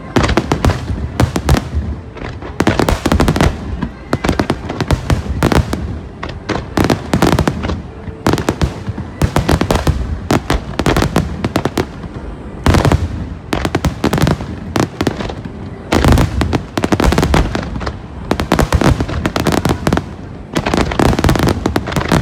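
Finale barrage of aerial firework shells: dense bursting detonations many times a second, with hardly a pause between them.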